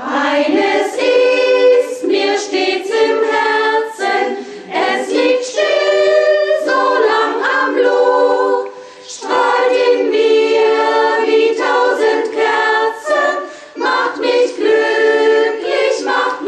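A choir singing a German song, in phrases with short breaks between them.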